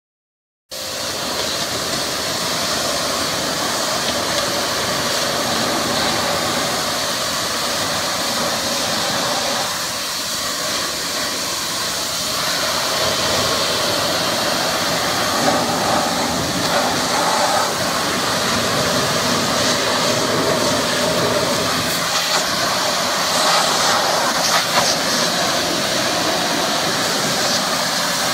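Pressure washer running steadily, its high-pressure jet hissing against a car's bumper and stripping the paint off.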